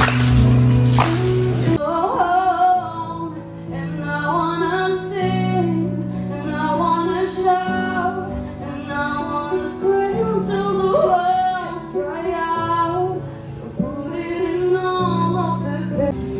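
A woman singing a slow song into a microphone, over an accompaniment of sustained chords, her held notes wavering with vibrato. It cuts in about two seconds in, after a short stretch of louder, different music.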